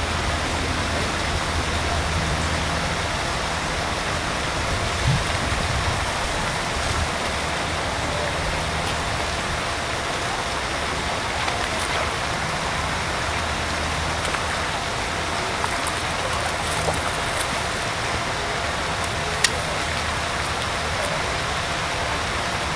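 Steady outdoor background noise: an even hiss with an on-and-off low hum underneath. A few faint clicks, one sharper near the end.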